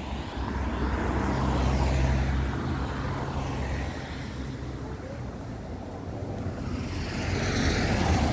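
Cars driving past on a wet road, their tyre noise swelling and fading as each one passes: one about two seconds in with a low engine hum, another close by near the end.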